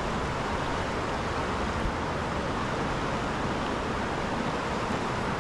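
Merced River rushing past the rocky bank, a steady, even roar of fast water, the river running high with snowmelt.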